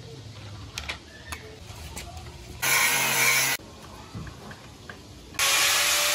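Light clicks and taps as a cutting disc is fitted onto an angle grinder, then the angle grinder running loudly for about a second from about two and a half seconds in, and running again near the end.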